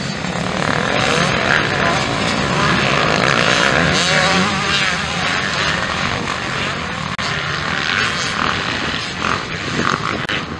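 Several motocross bike engines racing, buzzing and revving with the pitch rising and falling as the riders throttle on and off.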